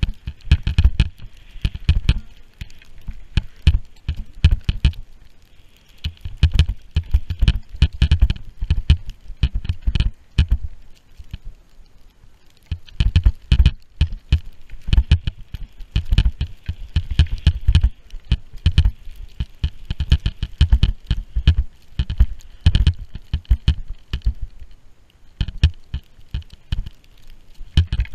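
Skis turning through deep powder snow, heard on an action camera, with wind buffeting the microphone in surges every few seconds and many sharp taps and thumps.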